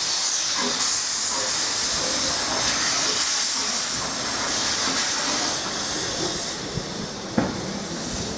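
Steam locomotive's cylinder drain cocks blowing off steam as it moves off: a loud, steady hiss that fades about six and a half seconds in, with a single sharp knock near the end.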